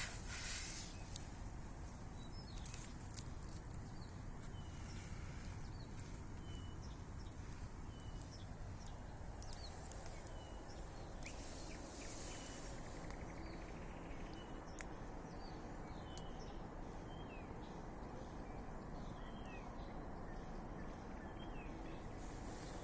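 A small campfire crackling with occasional sharp pops over a steady low rustle, while birds give many short chirping calls in the background.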